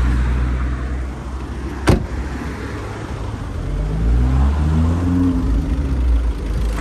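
Wind rumbling on the microphone, with a single car-door thud about two seconds in and a hum that rises and falls a little past the middle.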